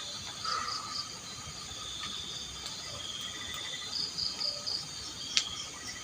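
Crickets and other insects calling steadily, several high pulsing trills overlapping, with one sharp click a little over five seconds in.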